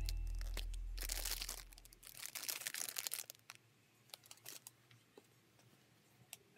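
A low background-music note fades out over the first two seconds. Then plastic packaging crinkles in a short run of crackles, followed by a few scattered light clicks.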